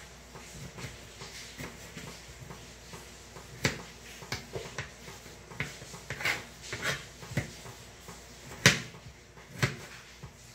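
Kitchen knife chopping tomato on a plastic cutting board: irregular sharp taps of the blade striking the board, with one much louder knock about three-quarters of the way through.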